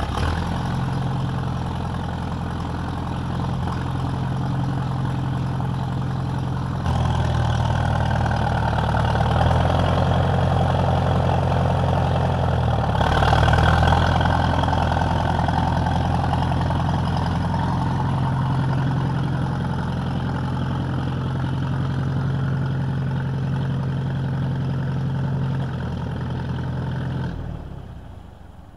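Vintage unstyled farm tractor's engine running: it steps up in revs about seven seconds in as the tractor is driven, is loudest as it passes close by, then settles and cuts off near the end.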